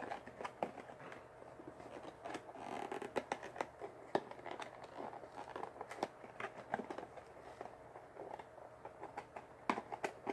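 A wiffle ball's packaging being opened by hand: scattered light clicks, scratching and rustling as it is worked open carefully.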